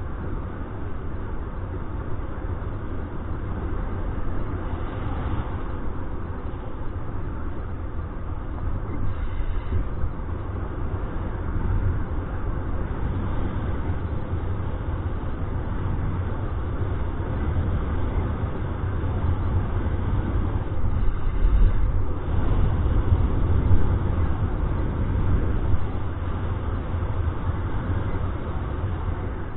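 Wind rushing over the camera's microphone in paraglider flight: a steady low rush that swells louder now and then, strongest at the bass end.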